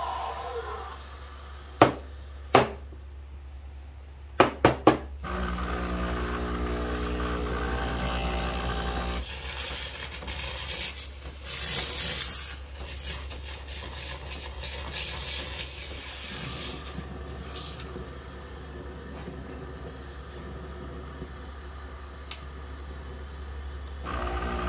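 Breville espresso machine and steel milk jug after milk steaming: a few sharp metallic knocks, a steady hum for several seconds, then about a second of loud steam hiss as the steam wand is purged, followed by quieter cloth rubbing and handling.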